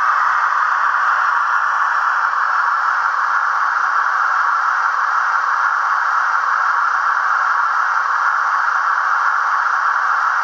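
Trix BR140 HO-scale model electric locomotive's sound decoder playing a steady hiss through its small speaker.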